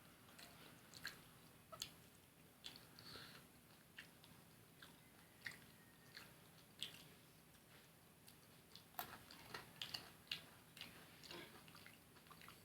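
Close-miked eating of fried fish and rice: quiet chewing with scattered small crisp clicks and crunches, busiest near the end.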